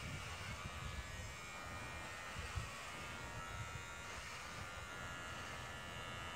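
Electric hair clippers buzzing steadily as they shave hair off a man's head.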